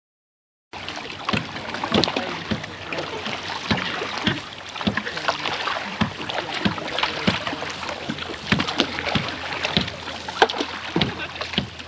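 Paddles of a bell boat crew splashing in the water, with irregular sharp splashes and knocks about one to two a second; the sound starts abruptly under a second in.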